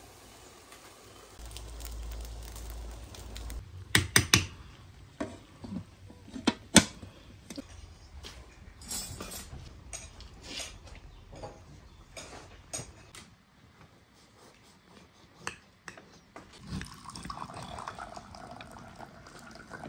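Metal kitchenware handled during cooking: aluminium pots, a colander and utensils clank and clink, with the loudest clanks about four and seven seconds in and smaller knocks following.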